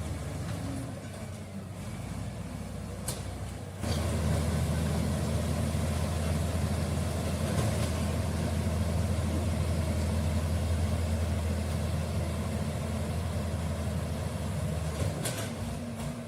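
Komatsu D85E-SS bulldozer's diesel engine running at a low, steady level. About four seconds in it jumps to a louder, steady working level, and it eases back down near the end.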